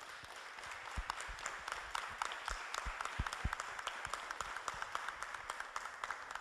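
An audience applauding: many hands clapping together, building up at the start and then holding steady.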